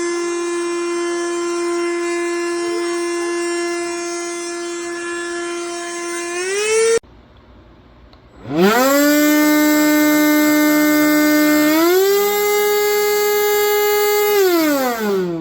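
Cordless handheld vacuum motor, a Black+Decker Dustbuster, running with a steady whine that rises in pitch and cuts off about halfway through. After a short lull it starts again and whines up to speed, steps higher in pitch about two-thirds of the way in, then winds down near the end.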